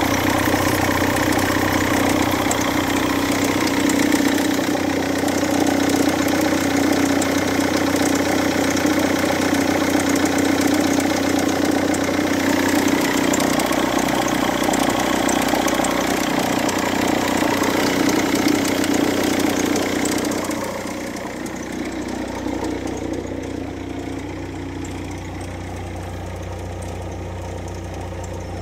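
Land Rover Freelander 2.0 Td4 (204D3) four-cylinder turbodiesel idling steadily with its oil filler cap removed. About two-thirds of the way through it becomes quieter and duller.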